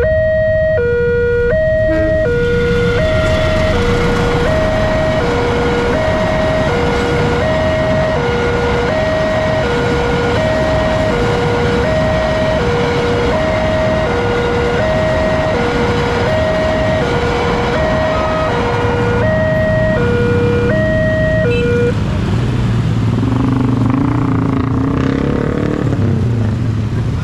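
Electronic two-tone level-crossing alarm alternating steadily between a low and a higher tone, about two tones a second, over the noise of a passing freight train of flatcars. The alarm stops about 22 seconds in, and motorcycle engines start up and rev as traffic moves off over the crossing.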